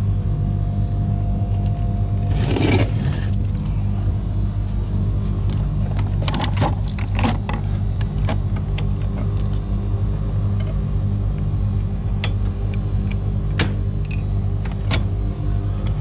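Background music with a steady, sustained low bass line, with scattered sharp clicks and knocks over it.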